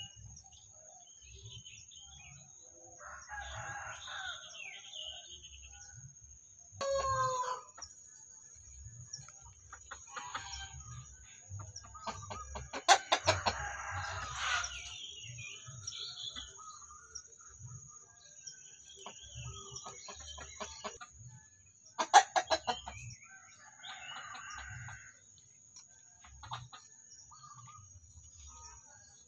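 Roosters and hens calling: a rooster crows in the middle, with shorter calls and clucks scattered before and after it. Several sharp cracks come with the loudest calls.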